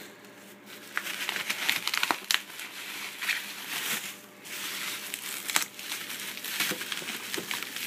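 Plastic bubble wrap and cardboard box flaps being handled and pulled back, crinkling and rustling with many small crackles, starting about a second in.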